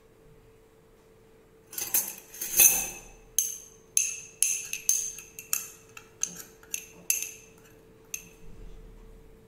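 A spoon tapping and scraping against the rim of a small glass bowl to knock spice out into a larger glass bowl: a run of about a dozen sharp, ringing glass clinks, starting about two seconds in.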